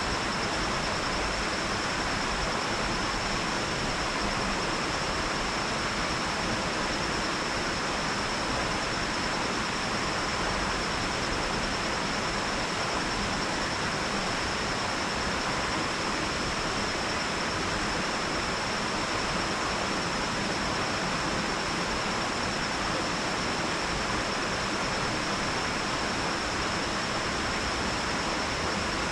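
Water spilling over a lake dam into the creek below, a steady, unbroken rushing noise, with a thin steady high-pitched tone running through it.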